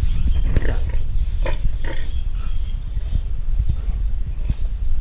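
Pig making short grunts and calls, most of them in the first two seconds, over a steady low rumble.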